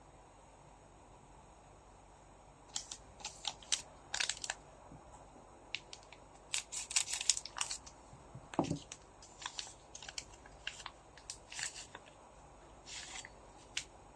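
Foil trading-card pack being handled and torn open: a run of short crinkles, crackles and snaps starting about three seconds in.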